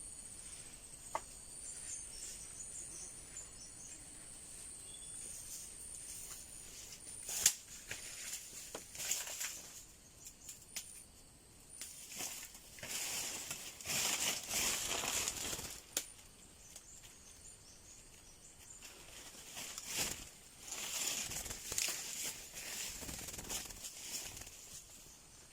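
Irregular bursts of rustling and flapping, each a few seconds long, with a few sharp clicks. A steady high-pitched insect drone sounds through the first several seconds.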